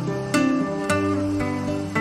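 Acoustic guitar instrumental music: plucked notes and chords ringing, with a new pluck struck about every half second.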